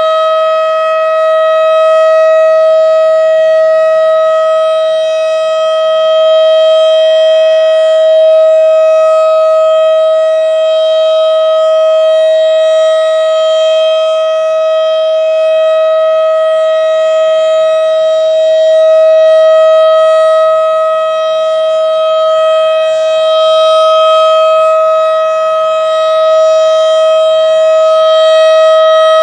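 Federal Signal Model 7 civil defense siren sounding a loud, steady tone at a constant pitch during its routine test, the level gently swelling and easing.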